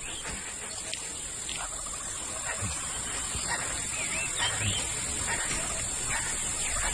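Bush ambience: a steady high insect drone, with a few short bird chirps about midway.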